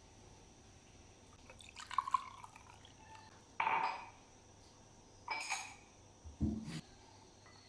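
A few short liquid and glass handling sounds: light clinks about two seconds in, two brief splashes, then a dull thump near the end.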